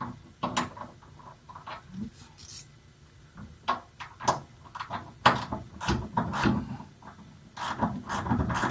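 Hand tools clicking and clunking as a socket is picked out and fitted to a ratchet, with a quicker run of clicks near the end.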